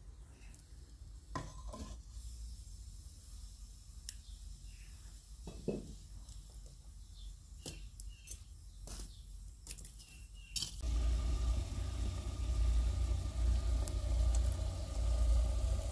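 A copper cooking pot is handled and set onto a metal trivet over wood embers, giving scattered clinks, scrapes and knocks. About eleven seconds in, the sound changes abruptly to a steady low rumble with a faint hum.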